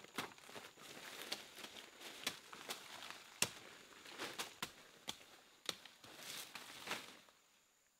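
Irregular sharp knocks and clicks, roughly two a second, with rustling between them, dying away near the end.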